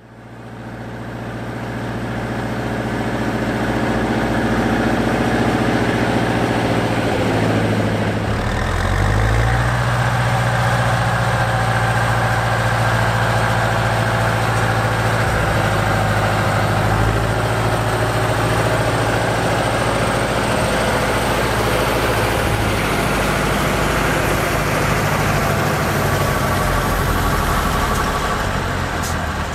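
Fortschritt tractor's diesel engine running at a steady speed, fading in at the start, with a brief change in its note about eight seconds in.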